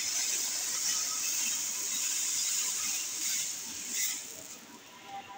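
Hot oil in a kadai sizzling loudly as a thin spiced lentil batter is poured in over frying raw mango pieces. The hiss holds steady, then dies away about four seconds in as the liquid fills the pan and the oil stops spitting.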